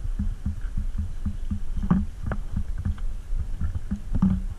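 Spinning reel cranked steadily to retrieve a pencil popper: a regular run of low thumps about four or five a second, with a few sharper clicks.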